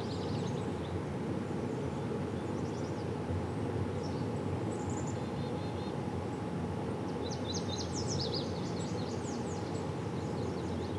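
Steady outdoor background noise with small birds chirping high and quick, the chirps bunched most thickly about seven to nine seconds in.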